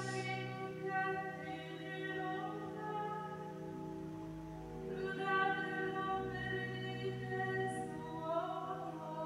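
Sung Italian psalm chant: voices carry a slow melodic line over steady held low notes that shift every few seconds.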